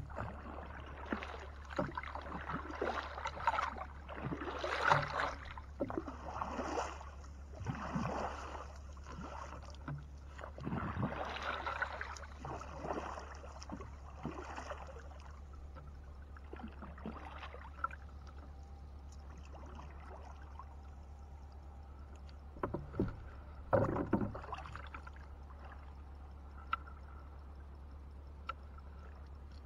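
Wooden paddle dipping and splashing through calm water beside a small wooden boat, in irregular strokes every second or two, then quieter for several seconds before a few more splashes about two-thirds of the way through.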